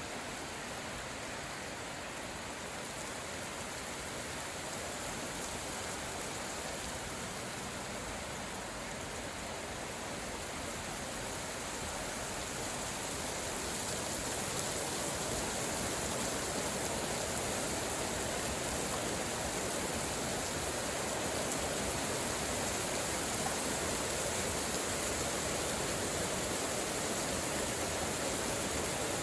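Steady rain falling, an even hiss with no distinct drops or thunder, growing a little heavier about halfway through.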